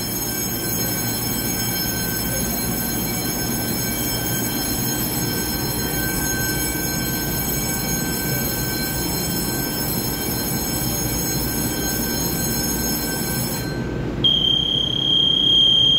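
Steady hum of an electric multiple-unit train standing at an underground platform, with several high whining tones. A loud, steady electronic buzzer tone comes in about fourteen seconds in and holds for about two seconds.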